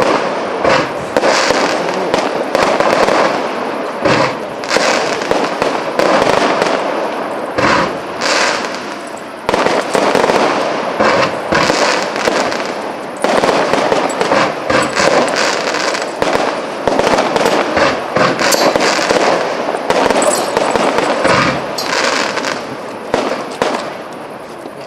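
Fireworks display: a dense, continuous barrage of bangs and pops, many overlapping each second over a rumbling, crackling wash, easing off near the end.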